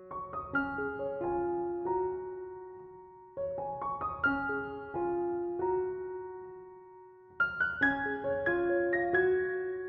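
Background piano music: single notes and chords struck in short phrases, each fading before the next phrase begins.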